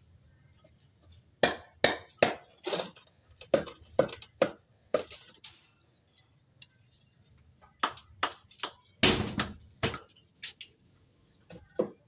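Hammer striking a concrete hollow block, chipping pieces off it: two runs of sharp knocks, about two a second, with a pause near the middle. The heaviest knock comes about nine seconds in.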